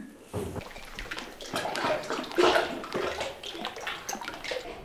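Water sloshing and splashing irregularly around a kayak inside a small rock cave.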